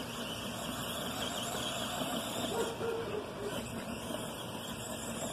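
Arrma Granite Voltage electric RC monster truck driving across grass, its brushed motor whirring, with a brief higher whine a couple of seconds in.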